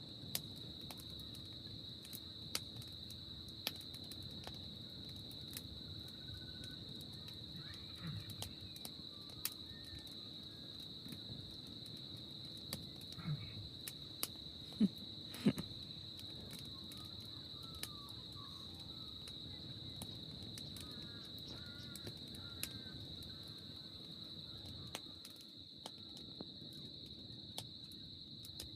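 A steady, high-pitched insect chorus hums without a break, with frequent sharp crackles and pops from a wood campfire and a few faint bird chirps.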